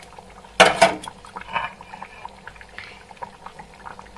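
Catfish curry bubbling at a simmer in an open metal kadai, a faint steady crackle of small pops. One short, loud noise stands out about half a second in, with a fainter one about a second later.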